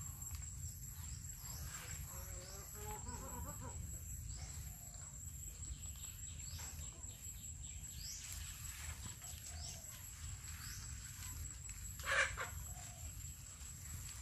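Farmyard poultry clucking softly among many short, falling high chirps, over a steady high-pitched tone and a low rumble. One louder, sharper call comes about twelve seconds in.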